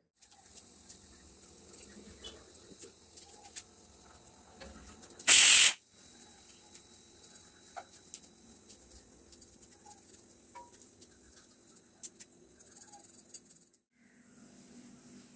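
Small knife clicks and rustles as vegetables for sambar, green beans and shallots, are cut and trimmed over newspaper, with one loud half-second burst of noise about five seconds in.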